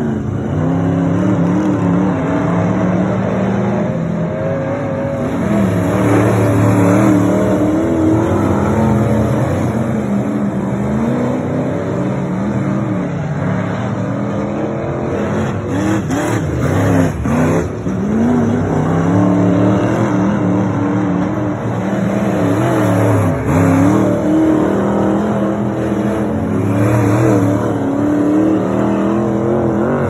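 Dirt-track race car engines running laps of an oval, the engine note rising and falling again and again as cars come round and pass.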